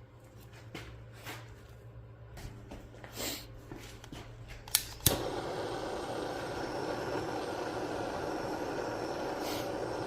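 Light scattered knocks and two sharp clicks, then about five seconds in a steady car running noise sets in and holds.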